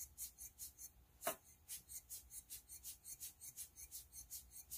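Hand-squeezed rubber bulb air blower puffing air in short hisses, about four a second. One louder tap comes about a second in.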